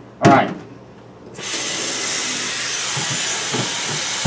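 Kitchen faucet turned on about a second and a half in, then a steady stream of tap water running into a stainless steel sink.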